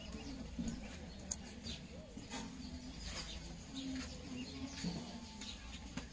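Scattered light clicks and taps from the plastic casing of a StarTimes TV remote control being handled and worked open, over a low steady hum, with short low tones coming and going in the background.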